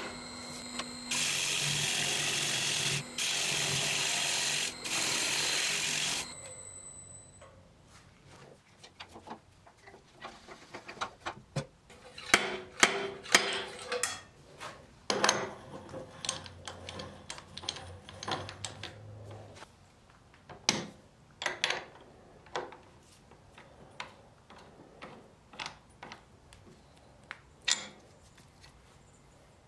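A loud, steady hiss in three bursts of one to two seconds, each starting and stopping sharply. Then sharp metallic clicks and clanks of a lathe chuck being handled and fitted onto the bare headstock spindle.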